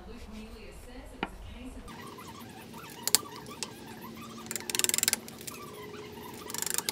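Hand work on a hardwood block: a few light knocks, then two short bursts of fast clicking, the first about halfway through and the second near the end.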